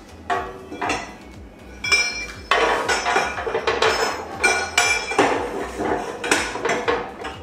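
Metal parts of a tube bender clanking and clinking as a tube is clamped into its clamping block, a rapid series of knocks, some leaving a short metallic ring.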